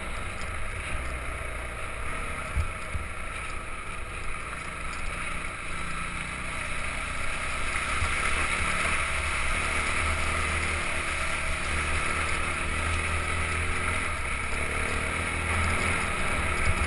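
Dirt bike engine running steadily under a constant rushing noise, a little louder from about seven seconds in.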